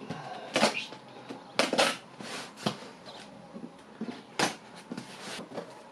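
A parcel being handled and opened by hand: irregular rustling and crinkling of packaging, broken by several short, sharper noises.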